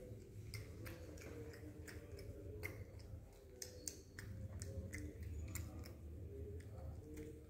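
Irregular sharp clicks and light taps as a gray langur handles things on a wooden table close by, over a low rumble.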